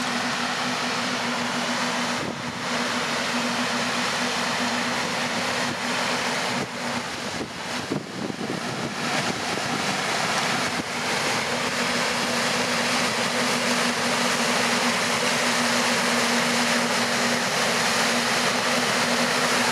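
Stern paddle wheels of a river cruise ship churning the water in a steady rush, growing slightly louder in the second half, with a steady low hum underneath that drops out for a few seconds midway.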